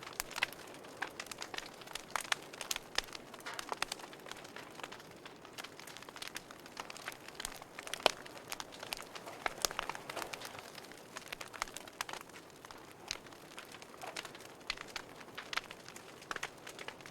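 Wood fire crackling in a fireplace: irregular snaps and pops over a steady hiss, with one sharper pop about eight seconds in.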